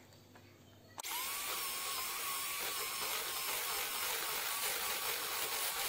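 Electric hand mixer switched on about a second in, spinning up quickly and then running with a steady high whine as its beaters mix cream cheese and mascarpone into whipped cream.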